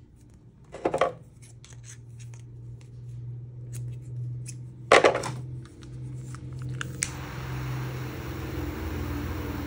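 Scissors snip through paracord about a second in and again about five seconds in. About seven seconds in a small butane torch lights with a click and hisses steadily, its flame fusing the clamped paracord ends together.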